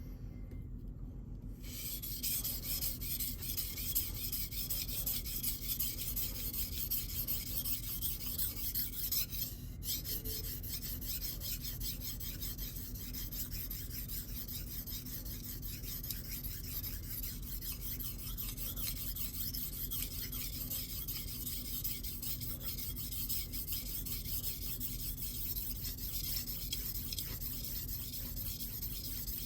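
Steel knife blade stroked back and forth across a Shapton Glass 1000-grit sharpening stone, a steady rhythmic scraping with a short pause about ten seconds in. This is the polishing stage: refining an edge that is already sharp and removing the coarse scratches.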